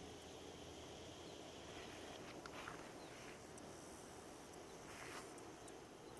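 Faint steady outdoor background noise with a few light ticks or scrapes.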